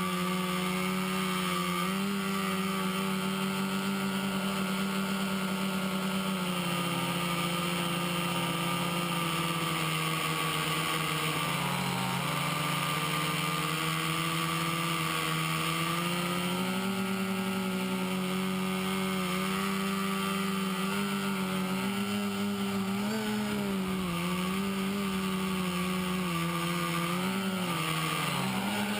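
Quadcopter's four brushless motors (Exceed RC Rocket 2215 920Kv) spinning 10-inch props in flight: a steady buzzing hum whose pitch dips and rises again and again as the throttle is worked, most often in the second half.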